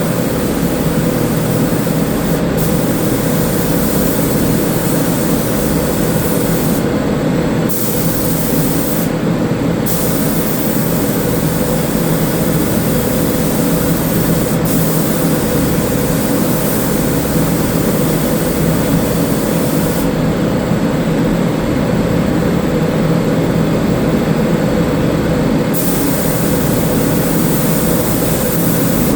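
Automotive paint spray gun hissing as primer is sprayed, cutting out briefly twice and then for several seconds near the end as the trigger is released, over a steady loud mechanical drone.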